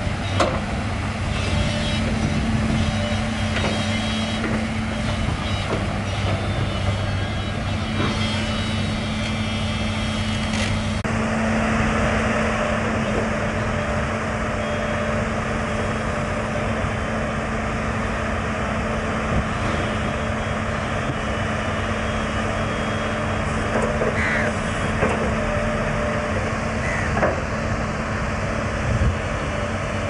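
Crawler excavator's diesel engine running steadily while it works, with a few short knocks. The sound changes abruptly about a third of the way in.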